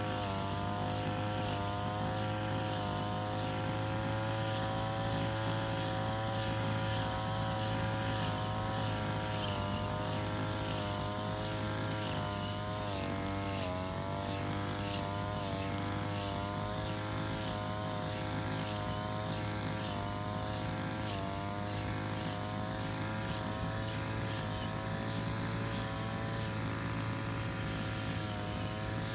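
Small engine of a shoulder-strap brush cutter running steadily as it cuts grass, its pitch dipping briefly a couple of times around the middle as the cutting head takes load, with scattered sharp ticks.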